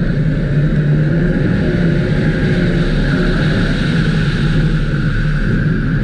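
Race car engine heard from on board, running hard under acceleration down a straight on an ice track, with a change near the end as the car slows for the next corner.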